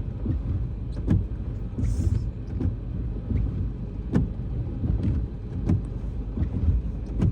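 Car cabin noise while driving slowly: a steady low rumble of engine and tyres, with a few scattered clicks and knocks.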